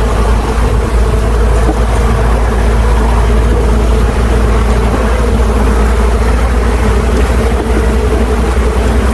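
Steady humming buzz of many honeybees flying around an open hive close to the microphone, over a deep rumble of wind on the microphone.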